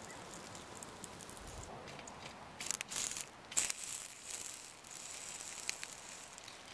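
Wooden sticks scraping and clattering against a small tin-can wood stove as they are fed into the fire, in a few short bursts with scattered light ticks.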